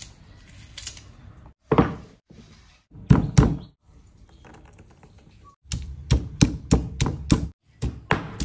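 Stone pestle pounding garlic and ginger in a black stone mortar: a few separate knocks, then from about six seconds in a steady run of thuds, about three a second, as the ginger and garlic are roughly crushed.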